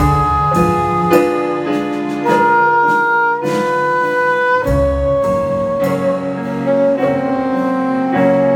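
Live rock band playing a slow piece: a soprano saxophone holds a melody of long notes, changing pitch about once a second, over electric guitar, bass, keyboards and drums.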